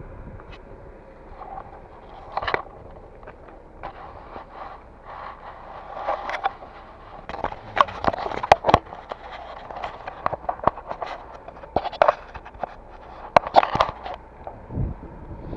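Irregular knocks, clicks and scraping, like hard objects being handled and moved about. The sharpest clusters come about halfway through and again near the end.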